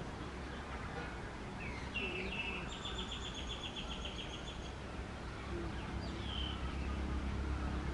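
Birds calling: a few short chirps and a fast, even trill of about six notes a second lasting about two seconds, over a steady low background rumble.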